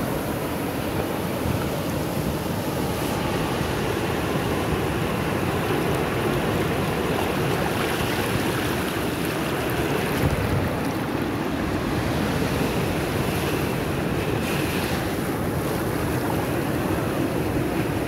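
Sea waves breaking just offshore and foamy surf washing up over a sandy beach, a steady rushing wash.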